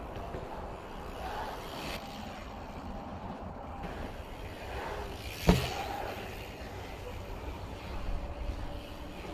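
Bicycle tyres rolling fast on asphalt as the bike passes close by, swelling and fading about five seconds in, with one sharp knock from the bike at the moment it goes past. A steady low rumble runs underneath.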